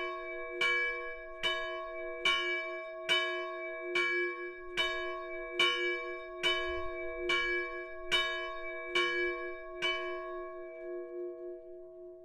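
Small bronze church bell (170 kg, cast in 1840 by János Nemes Tatár, note C-sharp), swung by a linear motor, striking about once every 0.85 s. About twelve strikes ring over a long hum. The strikes stop near the end as the bell rings down, and the hum fades on.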